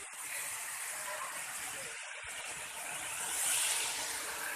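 Steady rushing hiss of water falling at a tall waterfall that is running low, swelling slightly about three and a half seconds in.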